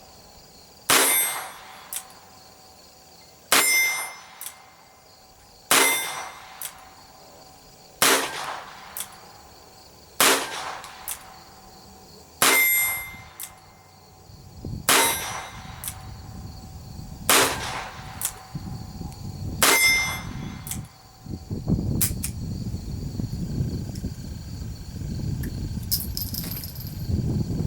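Ruger GP100 .22 LR revolver firing cheap bulk ammunition, nine single shots at a steady pace of one every two to two and a half seconds, each followed about half a second later by a fainter sharp crack. The shots stop about twenty seconds in, the ten-shot cylinder emptied, and rumbling handling noise follows.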